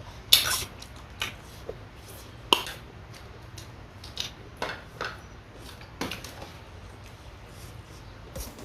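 Cutlery clinking against dishes: a scattering of short, irregular light clinks.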